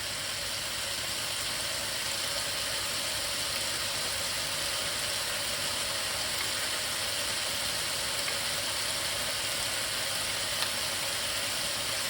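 Cut-up bird, onion and garlic frying in a hot pan: a steady, even sizzle.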